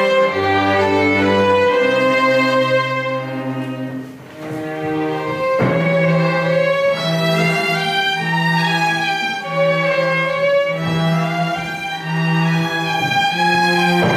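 Small string ensemble playing live, with bowed violin and cello. The notes are sustained, there is a short lull about four seconds in, and then a low note pulses about once a second under the melody.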